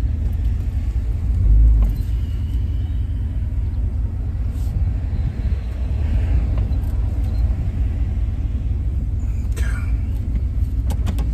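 Car's engine and running gear giving a steady low rumble, heard from inside the cabin as the car is slowly manoeuvred into a parking spot, with a few sharp clicks near the end.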